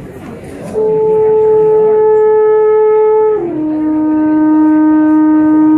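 Alphorn playing two long held notes: the first comes in about a second in, then it drops to a lower note, held steadily.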